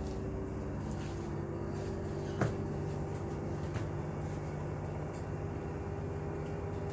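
Washing machine on its spin cycle: a steady motor hum. A single short knock sounds about two and a half seconds in.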